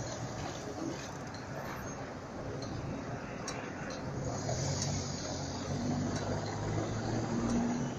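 Street traffic noise; from about halfway, a van's engine running close by as it pulls past, adding a low steady hum.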